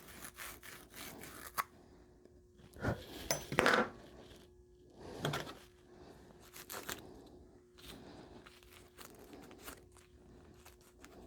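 Copper pipe coupling being scrubbed clean before soldering, in irregular rubbing and scraping strokes, a few of them louder about three to seven seconds in.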